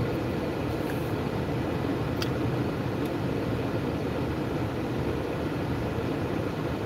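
Steady low rumble of a running car, heard from inside the cabin, with two faint clicks about one and two seconds in.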